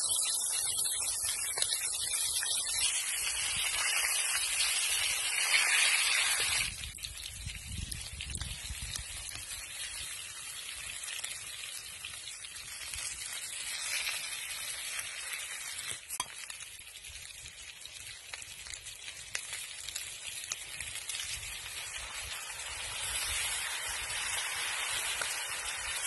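Chicken and onions sizzling in a cast-iron pan over a campfire, a steady hiss that drops in level suddenly about seven seconds in. Near the end it swells as beer is poured into the hot pan.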